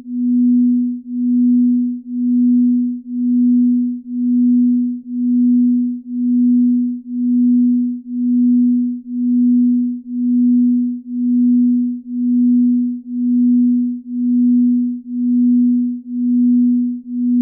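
Binaural-beat sleep tone: a single pure low tone near 250 Hz that swells and fades about once a second. The slow one-per-second beat is in the delta range used for sleep.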